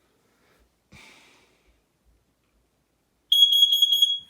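Smoke alarm sounding off from its test button: a loud, high-pitched beep pulsing rapidly, several times a second, that starts near the end after a faint short noise about a second in.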